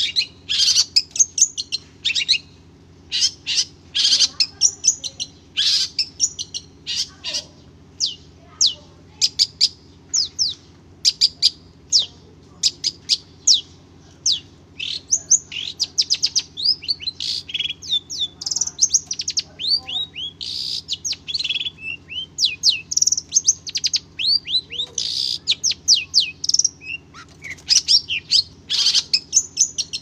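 Long-tailed shrike (Madura cendet) singing a fast, unbroken stream of short chirps and quick down-slurred whistles, a song full of mimicked phrases of other birds.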